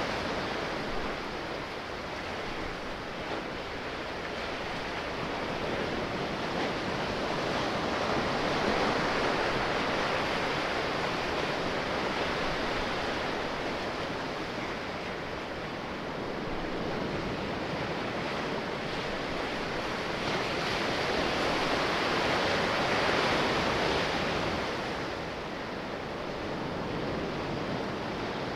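Sea waves: a steady rush of surf that slowly swells and eases, loudest about a third of the way in and again about three-quarters through.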